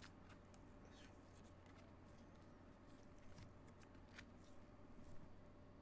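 Near silence with a few faint, scattered clicks and slides of glossy Panini Mosaic soccer cards being flipped through by gloved hands, over a low steady room hum.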